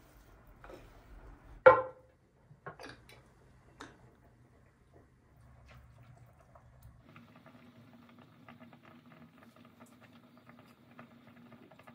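Glassware being handled while preparing a cake batter: a sharp clink of a glass bowl or baking dish on the counter about two seconds in, a few lighter knocks after it, then faint scraping and small ticks of a silicone brush and thick batter against the glass dish, over a low steady hum.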